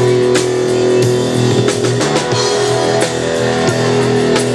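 Live rock band playing: electric guitar over held notes, with drum kit hits.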